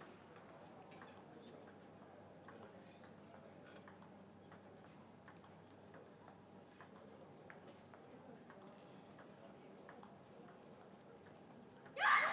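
Table tennis rally: the plastic ball clicks off the rackets and bounces on the table in a quick, irregular series of light ticks. Right at the end, as the point is won, crowd noise breaks out suddenly.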